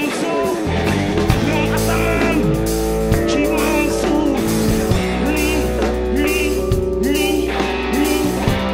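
Afro-rock band playing live: electric guitar, bass guitar and drum kit, with a lead line of bending, sliding notes over a steady beat.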